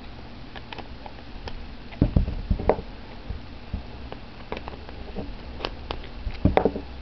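Scattered light clicks and taps of small metal parts being handled, keys, washers and bolt of a homemade hex-key key holder being screwed together, with a few louder knocks about two seconds in and near the end.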